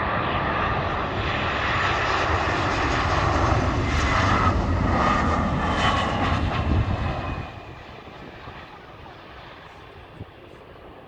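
Jet engines of an Airbus A320 airliner passing close by, loud with a whining tone over the noise. About two-thirds of the way through the sound falls away sharply to a distant rumble.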